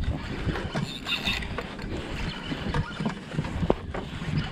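Spinning reel being cranked to reel in a heavy hooked fish, over steady wind and water noise on the boat, with a few short knocks.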